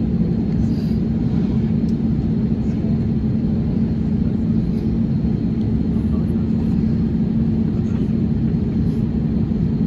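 Steady cabin noise inside an Airbus A320-232: an even rumble with a constant low hum from the jet's running engines, neither rising nor falling.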